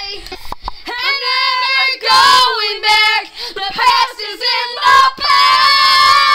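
A girl singing loudly in a high, belting voice: a run of short sung phrases, then one long held note from about five seconds in.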